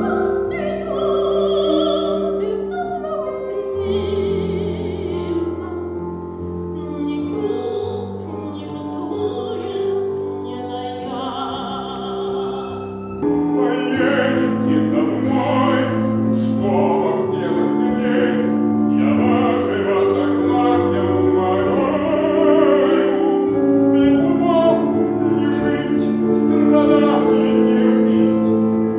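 Operatic singing with vibrato over a piano accompaniment. About halfway through the music grows louder and fuller.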